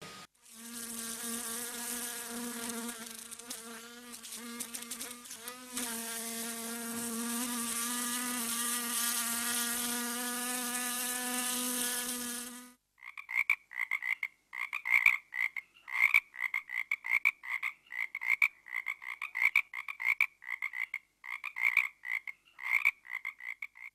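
Recorded housefly buzzing effect: a steady, slightly wavering buzz that cuts off about halfway through. It is followed by a recorded frog croaking effect, quick repeated croaks about two or three a second.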